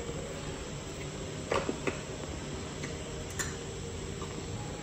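A few faint clicks and taps as a small bottle of liquid food colour is handled and its top closed, over steady room hiss.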